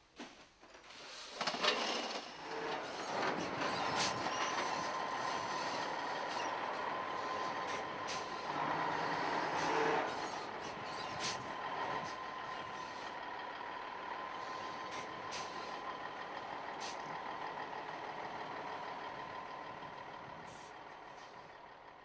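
Semi-trailer truck running: a steady hiss with a steady whine through it and scattered clicks and knocks. It fades down near the end.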